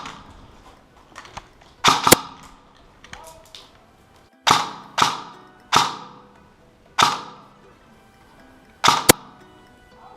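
A series of sharp, shot-like bangs, each dying away quickly. About nine come at irregular spacing, some in quick pairs.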